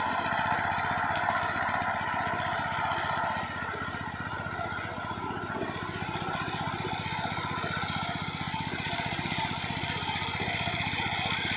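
Single-cylinder diesel engine of a walking power tiller running steadily under load as it ploughs through a flooded paddy field, with a rapid, even firing beat.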